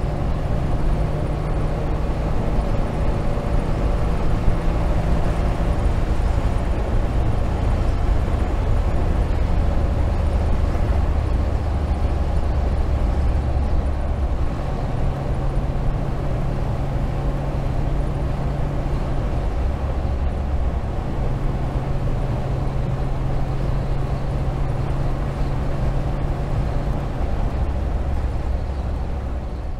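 1967 Austin-Healey 3000 Mk III's straight-six engine, fed by twin SU carburettors, running as the car drives along the road, with wind and road noise. The engine note steps up and down a few times.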